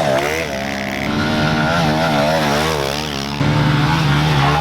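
Small single-cylinder pit bike engines revving up and down repeatedly as they ride the track. A louder, lower, steady engine note comes in about three and a half seconds in.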